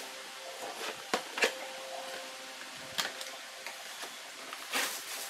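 Plastic packaging rustling and crinkling as parts are unpacked by hand, with a few sharp clicks and knocks, the loudest about a second and a half in and near the end.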